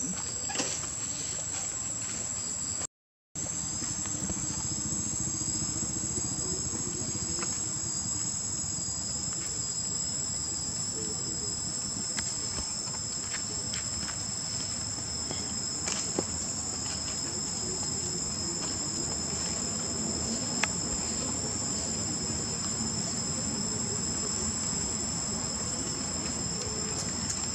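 Steady, high-pitched insect chorus of two unbroken shrill tones, with a brief total dropout about three seconds in.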